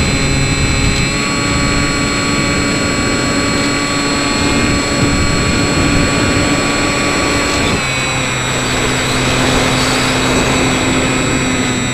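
Electric motor and propeller of a Skywalker X5 FPV plane running steadily, heard from its onboard camera. The pitch rises slightly about a second in and drops about eight seconds in, with more air rush after the drop.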